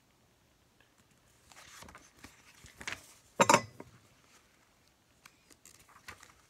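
Paper rustling as the pages of a paperback book are turned by hand, with one brief, louder rustle about halfway through.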